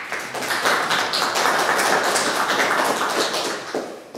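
Audience applauding, a dense run of many hands clapping that cuts off abruptly near the end.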